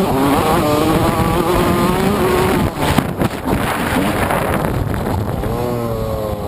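TM MX 125 two-stroke motocross engine held at high revs at speed, with wind rushing over the microphone. About three seconds in the throttle chops off and on, and near the end the revs fall away steadily as the rider rolls off after taking the chequered flag.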